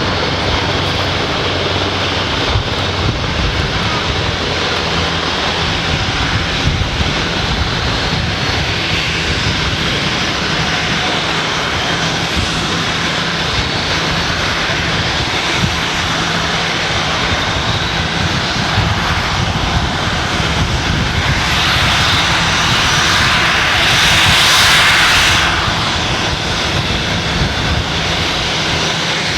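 Aircraft engines running: a steady rumble and hiss that swells louder for a few seconds about 22 to 25 seconds in.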